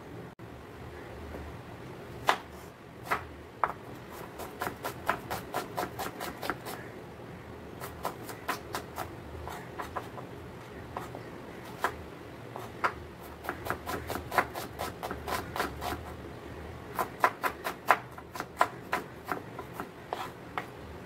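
Kitchen knife chopping red onion on a wooden cutting board, in runs of quick, sharp strokes, about four a second, with short pauses between runs.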